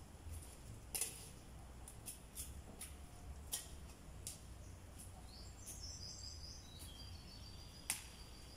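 Scattered sharp clicks and snaps from hands working among plants and soil while planting sweet potatoes; the loudest come about a second in and near the end. A bird gives a short, high twittering call a little past the middle.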